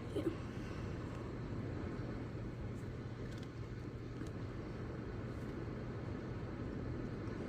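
Heavy thunderstorm rain and gusty wind heard from inside a house: a steady, low rushing with a few faint taps.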